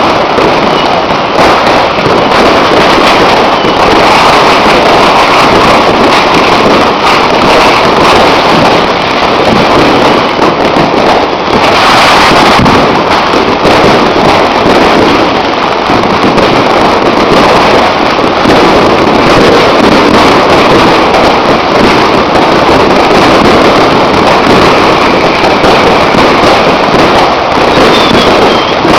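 Many fireworks and firecrackers going off at once: a loud, dense, unbroken crackle of countless pops with no pause.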